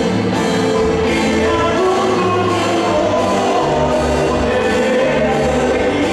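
Live band playing through a PA with a lead vocal, keytar and electric guitar over a steady bass line and beat.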